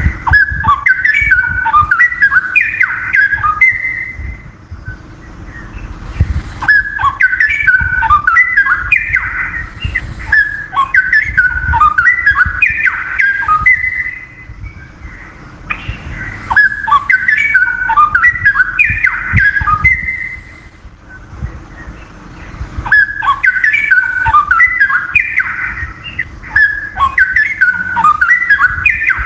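Wild straw-headed bulbul singing loudly: long bubbling, warbling phrases of rich, rapid whistled notes. It sings in four bouts of several seconds each, with short pauses between them.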